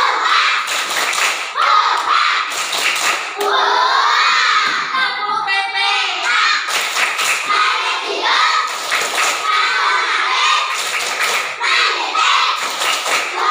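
A class of young children chanting together with their teacher, many voices at once, with repeated thumps from hands and desks.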